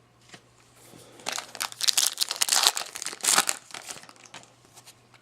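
Foil trading-card pack wrapper crinkling for about three seconds as it is handled and torn open.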